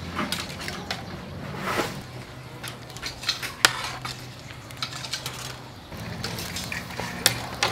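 Metal tongs clinking against a metal tray and scallop shells clacking onto a wire grill grate as the scallops are set out one by one. It is a string of irregular sharp clinks, the loudest about three and a half seconds in and another near the end.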